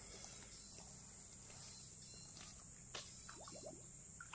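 Faint, steady high-pitched insect chorus, with a single sharp click about three seconds in.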